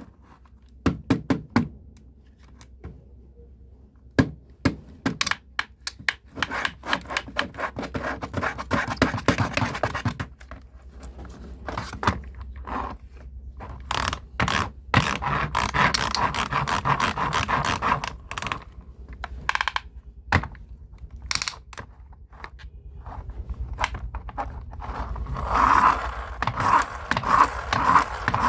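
A hard plastic toy JCB construction vehicle being handled: a long run of clicks, knocks and scraping, with busier scraping stretches near the middle and the end.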